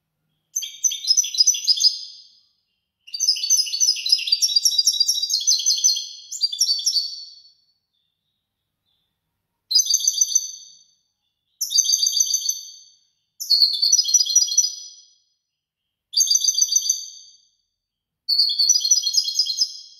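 European goldfinch singing: fast, high twittering phrases, one long run through the first seven seconds, then a pause of about two seconds and shorter phrases of a second or so about every two seconds.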